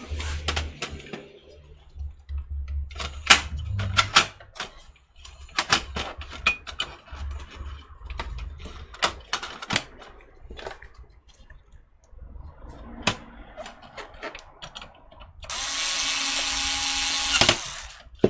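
Clicks, knocks and rattles of parts being handled on a desktop computer case, then a cordless power screwdriver runs steadily for about two seconds near the end.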